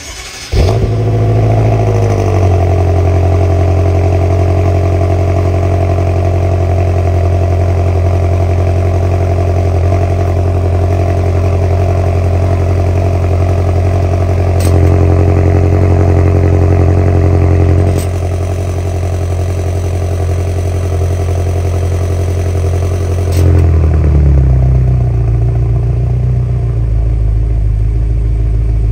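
BMW F10 M5's twin-turbo 4.4-litre V8 cranking and catching on a cold start, its idle flaring high and settling to a steady fast idle at the tailpipes. Sharp clicks come about 15, 18 and 23 seconds in, each followed by a step in loudness, louder, then quieter, then louder again: the exhaust valves being switched open and shut by the newly fitted valve controller.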